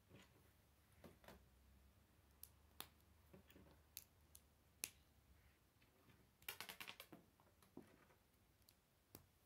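Faint clicks of K'nex plastic rods and connectors being snapped together and handled, with a quick run of clicks about two-thirds of the way through.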